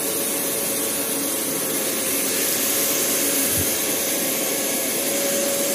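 Steady workshop machine noise from a CNC machining centre running: an even hiss with a faint steady tone through it.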